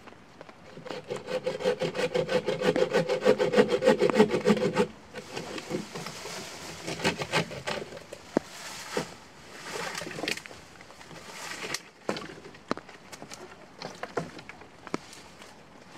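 Bucksaw cutting through a fallen pine log in rapid, even strokes, which stop abruptly about five seconds in; then quieter, irregular scraping and rustling.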